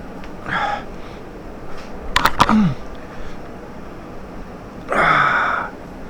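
A man's breath and mouth sounds: a short breath, a couple of clicks with a brief falling grunt, then a longer breathy sigh near the end.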